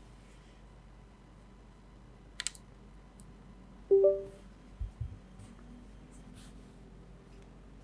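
A few isolated sounds from a mechanical keyboard rather than steady typing: a quick pair of sharp key clicks, then a short metallic ring that dies away about four seconds in, the loudest sound, followed by two dull low thumps.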